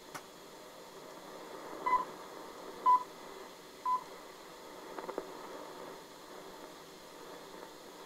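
Shortwave broadcast reception played back from cassette: steady static hiss with three short beeps of one pitch, a second apart, about two seconds in. They are pips ahead of the station's sign-on announcement.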